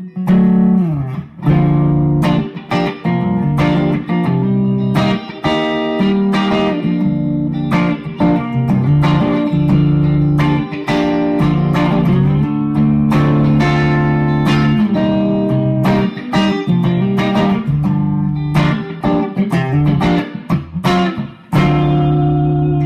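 Gibson ES-335 semi-hollow electric guitar played through a Bad Cat Bobcat 5R tube combo amp, its rip switch on and master volume turned back a little: a continuous passage of ringing chords and notes. The tone is the one called "beautiful".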